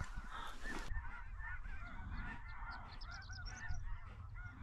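Many snow geese calling at once: a dense, continuous chatter of short, high honks overlapping several times a second.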